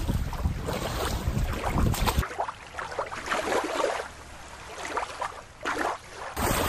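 Running river water, with wind rumbling on the microphone for about the first two seconds, after which only the quieter water noise remains.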